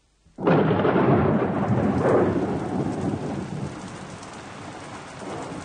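Radio-drama sound effect of a thunderclap that breaks suddenly about half a second in and rumbles away over the next few seconds, leaving steady heavy rain.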